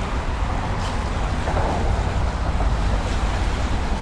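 Wind buffeting the camera microphone: a steady low rumble over an even hiss of wind and lapping bay water.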